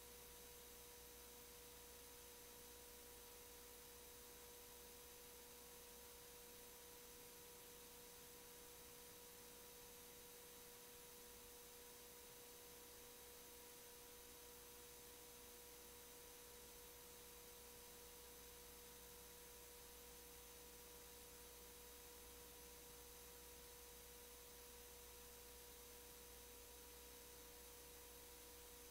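Near silence: a faint steady tone holding one pitch over low hiss.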